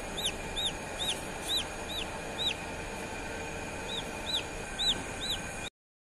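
Newly hatched chick peeping: a run of short, high, rising-and-falling peeps, about three a second, that pauses for over a second midway and then picks up again.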